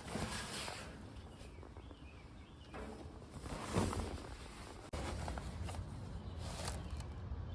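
Velcro hook-and-loop strips being handled and pulled apart: a few short noisy rips, the loudest just under four seconds in.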